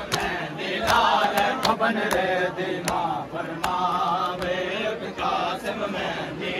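Crowd of male mourners chanting together in a Muharram lament, with repeated sharp slaps of hands beating on chests (matam), about two a second.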